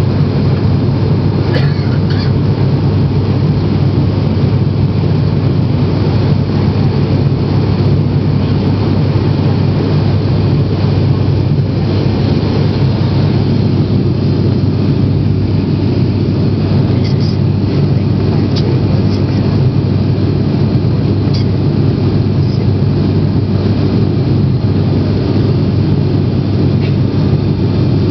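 Turboprop airliner's engines and propellers in flight, heard from inside the cabin: a loud, steady, low drone.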